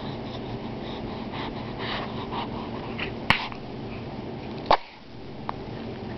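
A small pet's big sneeze: one short, sharp burst nearly five seconds in, the loudest sound here. A sharp click comes a little over three seconds in.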